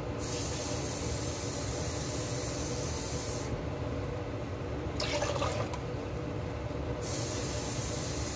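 Water being poured into a stainless-steel pot on a gas stove: a steady hiss of running water, with a brief louder splash about five seconds in.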